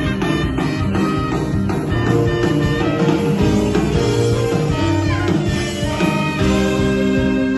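Live worship band playing a song at rehearsal, guitar prominent over bass and other instruments, with some sliding notes about five seconds in.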